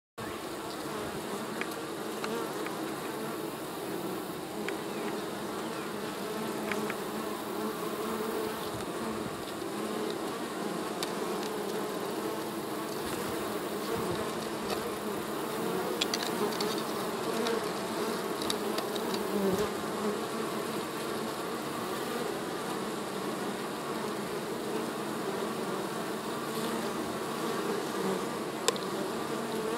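Swarm of honeybees buzzing steadily as they fly in and out of the hive entrance, a continuous low hum.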